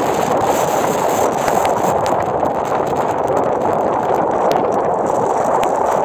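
Storm-force wind of about 90–100 km/h buffeting the microphone in a blizzard: a loud, steady rushing noise with no letup.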